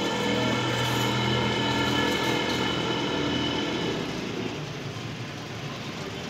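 A motor vehicle engine running steadily close by on the street over street noise. It fades after about four seconds.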